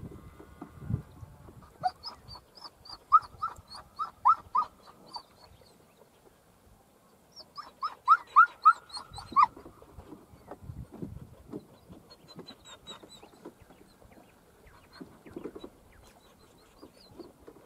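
Border collie yipping in two quick runs of short, high yips, about four or five a second, as it works cattle.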